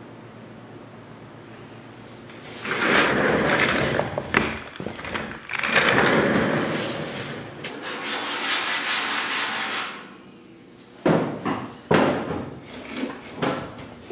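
Hand sanding of the primed and filled steel body of a 1972 Triumph GT6 with sandpaper on a flat block: long rasping strokes, turning into quick, even back-and-forth strokes, about five a second. A few sharp knocks near the end.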